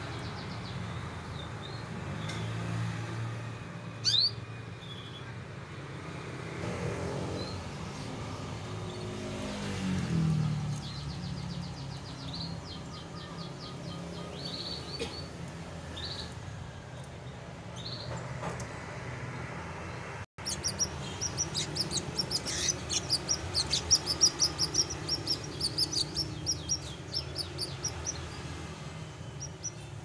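Domestic canaries chirping, with scattered short calls at first. About two-thirds of the way in, after a brief dropout, a canary sings a fast, dense trilling song. A low steady hum runs underneath.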